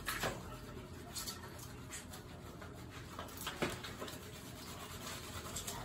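Hands rubbing shampoo lather through a wet dog's fur: a soft, steady scrubbing, with a couple of brief squeaky sounds, once near the start and again about three and a half seconds in.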